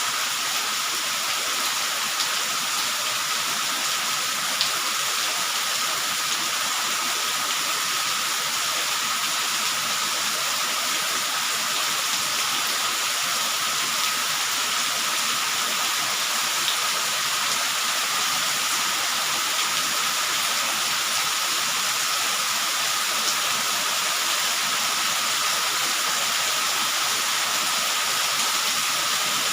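Steady rainfall, an even hiss of rain that does not let up, with a few faint drip ticks and a thin steady high tone running beneath.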